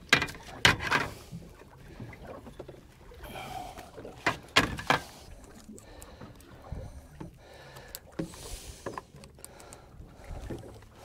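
Handling noises on a fiberglass boat deck as a netted flounder is unhooked and laid down: a few sharp knocks and clatters at the start and again about four to five seconds in, with lighter taps and rustling between.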